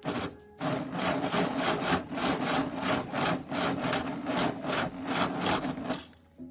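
Rapid back-and-forth rasping strokes of a hand tool rubbing on a surface, about two to three strokes a second, starting about half a second in and stopping near the end.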